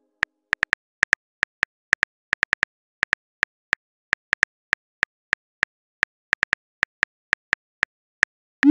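Simulated phone keyboard clicks, one short tick per letter at an uneven pace of about four a second, as a text message is typed out; near the end a short rising whoosh as the message is sent.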